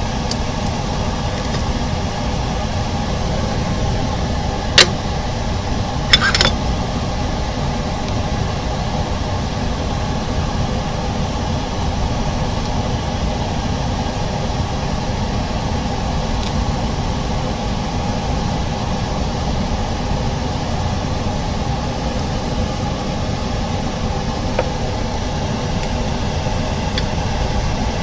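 A steady mechanical hum with a whirring noise, as from a fan or motor running. A sharp click comes about five seconds in, and a short clatter about a second later.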